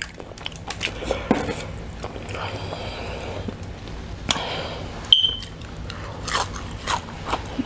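Someone tearing and biting air-fried Popeyes fried chicken and chewing it, with many short wet mouth clicks and smacks. A brief high squeak sounds about five seconds in.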